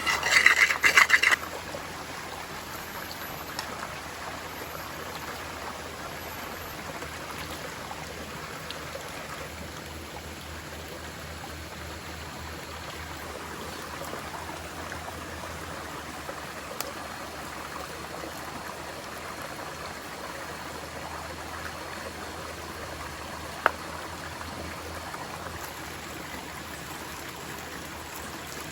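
Forest stream flowing steadily near the headwaters. A loud burst of rapid clattering in the first second or so, and a single sharp click near the end.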